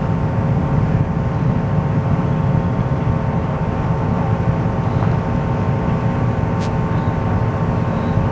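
Distant Delta II rocket in powered flight: a steady low rumble of its motors.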